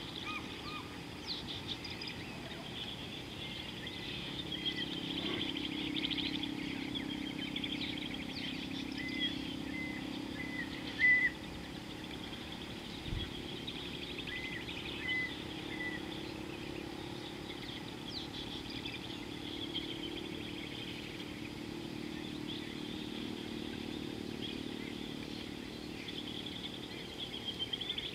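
Birds calling: short, repeated rising chirps and a fast, buzzy trill, over a low drone that swells and fades twice. A single soft thump a little after the middle.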